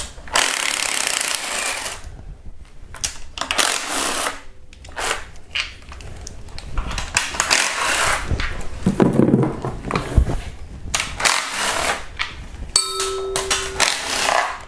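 Handheld power ratchet running in short bursts as it spins out the valve cover bolts one by one. A short ringing tone sounds near the end.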